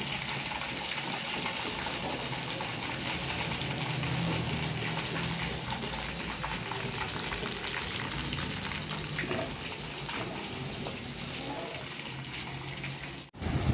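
Chicken pieces frying in hot oil in a wok, a steady sizzle. It cuts off suddenly near the end.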